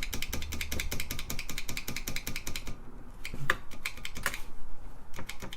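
TRS-80 Model I keyboard keys clicking in a fast, even run of about a dozen clicks a second for the first three seconds, then a few single key presses, as the keys are tested.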